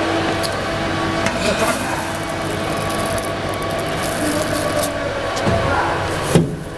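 Plastic-flake colour sorting machine running: a steady mechanical hum and hiss with scattered small clicks, and a brief loud knock near the end.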